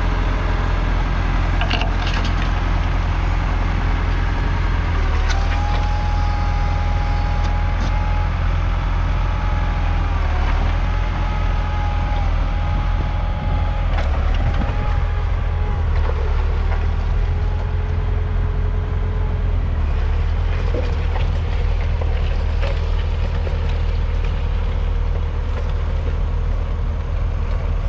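Ford 6410's 4.4-litre four-cylinder diesel engine running steadily under load as the tractor pulls a reversible plough through the soil. A faint whine comes and goes in the middle.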